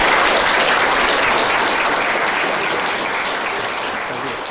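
Audience applauding steadily, slowly fading toward the end.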